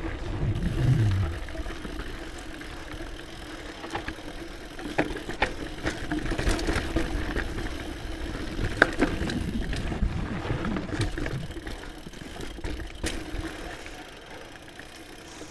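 Scott Genius mountain bike rolling fast down a dirt singletrack: tyres on dirt over a steady low rumble, with the chain and frame rattling and short sharp knocks over bumps and roots.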